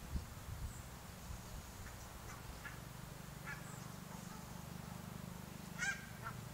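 Geese calling: a few short, scattered honks, the loudest near the end, over a low steady rumble, with a low bump at the very start.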